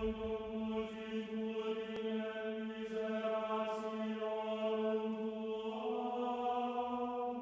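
Background music: one low droning note with a rich set of overtones, held steadily, its upper notes shifting a little near the end.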